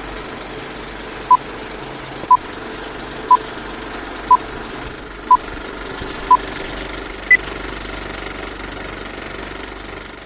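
Old film projector running with a steady mechanical clatter, under a film-leader countdown: a short beep each second, six at one pitch, then a seventh at a higher pitch.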